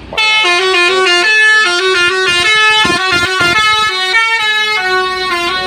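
Basuri 'telolet' multi-tone bus horn playing a quick tune: a loud run of horn notes stepping up and down in pitch.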